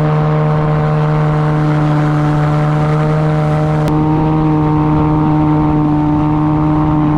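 Yamaha 9.9 two-stroke outboard with a jet pump running steadily at high revs, pushing the inflatable boat on plane, over the rush of water. There is a brief break and a slight rise in pitch about four seconds in.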